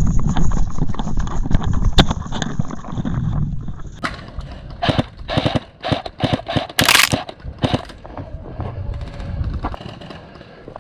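Loud rumbling noise for about four seconds, then a run of sharp cracks and pops from airsoft guns firing, with one louder burst about seven seconds in.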